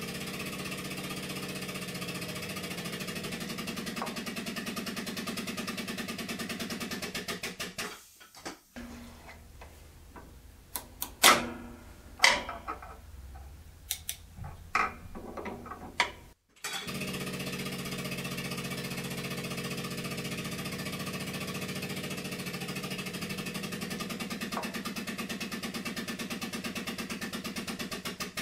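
A steady mechanical running sound with a fast, even pulse from the bolt-breaking torque rig loading a bolt; it cuts off abruptly twice. Between the two runs come a few seconds of sharp metallic clicks and clanks as the combination wrench is handled on the bolt head.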